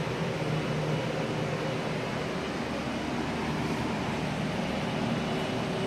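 Steady hum and rush of building ventilation or a heating unit, with a faint low drone.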